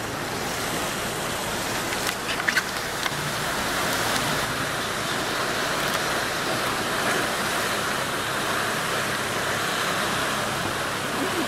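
Steady rush of sea water and surf against a rocky shore, heard from a small boat, with a few faint knocks about two and a half seconds in.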